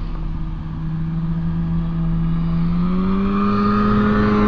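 Snowmobile engine running as it approaches: a steady drone that rises in pitch and grows louder about two to three seconds in.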